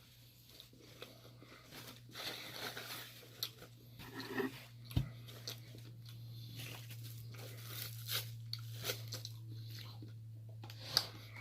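Close-up mouth sounds of biting into and chewing a McDonald's double quarter pounder BLT burger, with scattered crunchy clicks. A low steady hum comes in about five seconds in.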